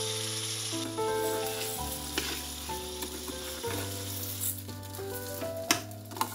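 Food sizzling and frying in a hot pan while being stirred with a spatula: vegetables, then basmati rice toasting in butter. Instrumental background music plays throughout, and a couple of sharp clicks come near the end.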